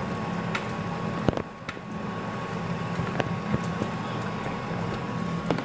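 Steady fan hum, with a few sharp clinks of metal tongs against a frying pan, the loudest about a second in.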